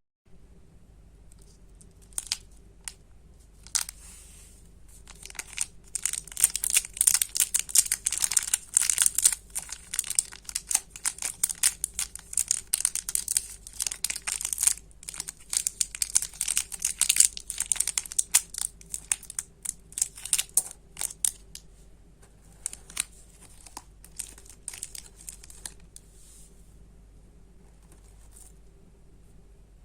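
Plastic candy wrappers being crinkled and torn open by hand. There are a few scattered crinkles at first, then dense, sharp crackling for about a quarter of a minute, then it thins out again.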